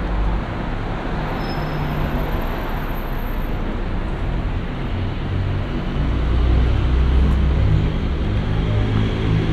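City street traffic: engines of passing motor vehicles running over a steady road noise, with a heavier low rumble about six seconds in.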